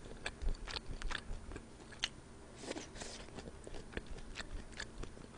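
Close-miked chewing and wet mouth sounds of a person eating spicy seafood noodle soup, soft, with scattered light clicks and ticks.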